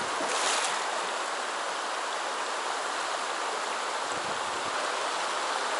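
Shallow, rocky river rushing steadily over stones in a riffle, a constant close water hiss.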